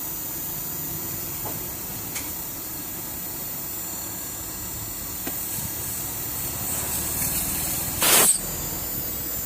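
Repaired Hitachi inverter air conditioner running with a steady hiss, a few faint clicks, and one short, loud hissing burst about eight seconds in.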